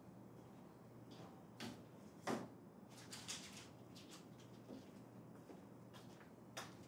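Quiet room tone with a low hum and scattered soft knocks and clicks of objects being handled, the loudest a little past two seconds in.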